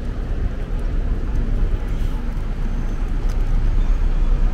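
Outdoor urban ambience: a steady low rumble, with faint scattered ticks above it.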